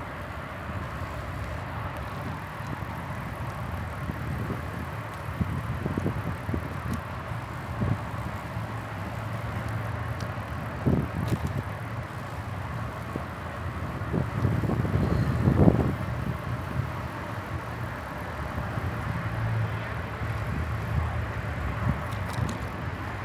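Bicycle ride: a steady low rumble of tyres rolling on the path, with scattered knocks and rattles from bumps. The loudest is a jolt a little past halfway.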